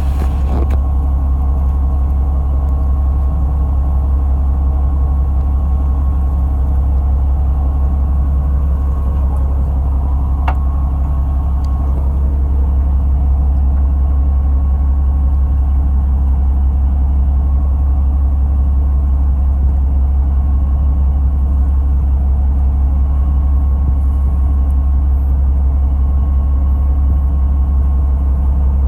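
A fishing boat's engine running steadily: a constant low drone with a faint steady whine above it, and a single click about ten seconds in.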